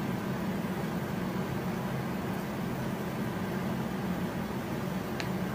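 Steady low hum with a faint hiss: background room noise, with no clear sound from the cat or the man.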